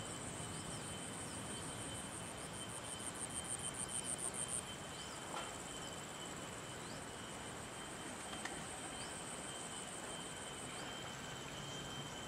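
Rainforest insects droning steadily at a high pitch. A louder pulsing trill swells from about two seconds in and cuts off suddenly a couple of seconds later, and faint short chirps sound now and then.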